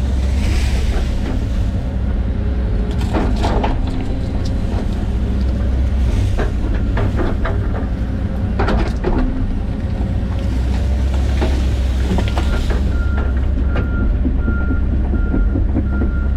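John Deere 130G excavator's diesel engine running steadily, with bursts of cracking and knocking as trees and brush are grubbed out. From about thirteen seconds in, a backup alarm beeps repeatedly, about twice a second.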